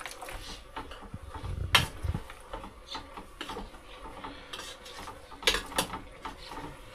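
Irregular knocking, scraping and clatter of a utensil and container against a cooking pot, with sharp clinks about two seconds in and twice more near the end.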